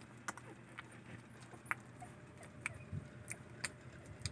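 Newborn puppies stirring in a plastic-slatted whelping crate: scattered soft clicks and ticks at an irregular pace, with a faint short squeak about two seconds in.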